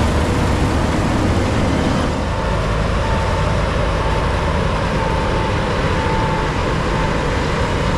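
New Holland CX8.90 combine harvester running steadily while cutting wheat, a dense low mechanical noise. A faint short tone repeats about once a second through the middle.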